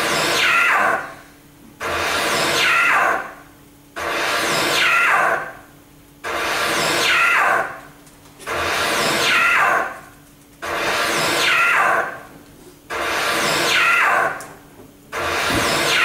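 Electronic sounds played over loudspeakers in a contemporary saxophone-and-electronics piece: a sudden noisy burst that sweeps down in pitch and fades, repeated about every two seconds, over a low steady hum.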